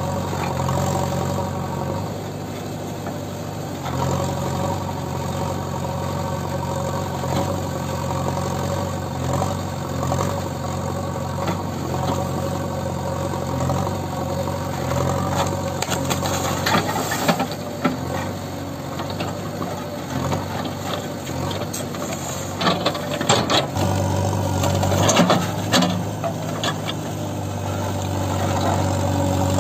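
Diesel engine of a JCB 3DX backhoe loader running under load as the backhoe arm works, with a run of sharp knocks and cracks in the second half and the engine note growing stronger near the end.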